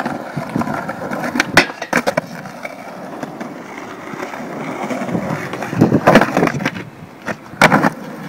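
Skateboard wheels rolling over rough, cracked concrete, a continuous gritty rolling noise that swells in the middle. It is broken by sharp clacks of the board hitting the ground, a couple about a second and a half in and louder ones around six seconds in and near the end.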